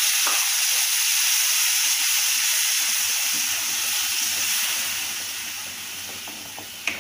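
Freshly added grated tomato sizzling in hot oil in a kadhai, a dense hiss that fades gradually over the last few seconds as it is stirred with a spatula, with one short tap near the end.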